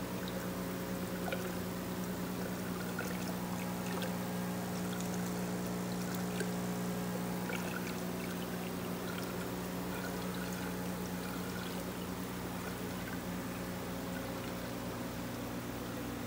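Water trickling and splashing into an aquarium tub from a filter outlet, with many small droplet ticks, over a steady low motor hum.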